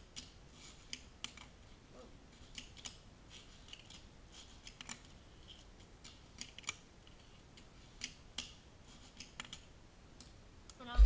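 Fingerboard clicking and clacking on a tabletop: scattered sharp clicks of the board popping and landing, with a few short rolling scrapes of its wheels between them and a louder thump right at the end.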